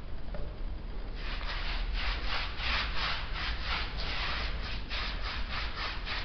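Paintbrush scrubbing sand-textured decorative paint onto a wall: quick back-and-forth strokes of gritty swishing, about four a second, starting about a second in.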